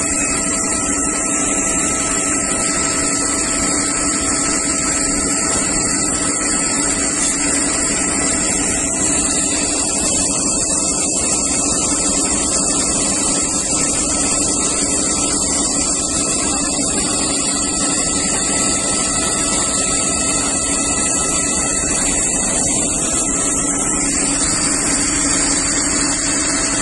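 Fire engine's water pump running at a steady pitch, with the hiss of a hose jet spraying water onto a fire.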